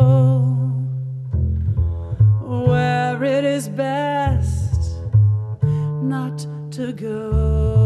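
Plucked double bass playing a moving line of low notes under a woman's jazz vocal with vibrato on long held notes. The voice drops out briefly near the start and comes back about a second in.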